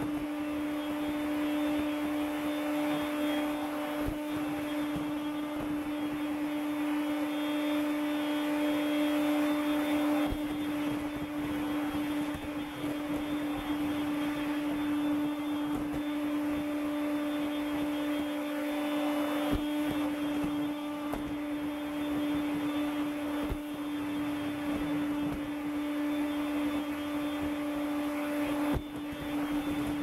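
Makita CL108FD 10.8 V cordless stick vacuum running steadily with a constant motor hum and rushing air as its floor head sucks up scattered debris from a wooden floor, with a few brief clicks.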